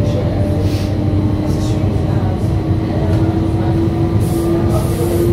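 Stadler FLIRT ETR 170 electric multiple unit under way, its traction motors whining in one steady tone that rises slowly as the train gathers speed, over a constant low running rumble.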